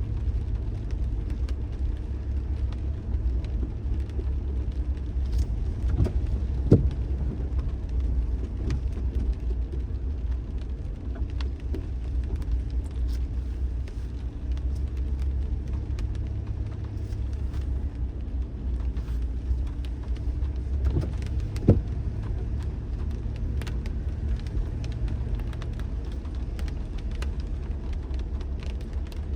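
Car driving along with a steady low road rumble and faint scattered ticks. There are two sharp thumps, about a quarter of the way in and again about three quarters through.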